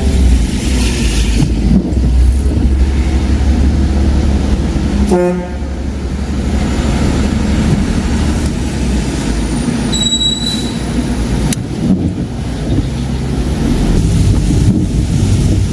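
A car driving on a highway, heard from inside the cabin as a steady low rumble of road and engine noise. A brief pitched blip comes about five seconds in, and a short high electronic beep comes about ten seconds in.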